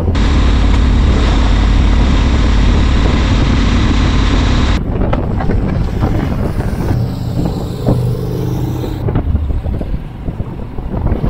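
Motorcycle riding on a gravel road, dominated by wind rushing over the camera microphone with the engine underneath. About five seconds in, the wind noise drops suddenly and the engine's note comes through more clearly for a few seconds before the heavy wind rush returns.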